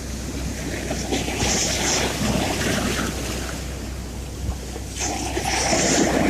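Sea waves washing ashore, swelling twice, over a steady low hum.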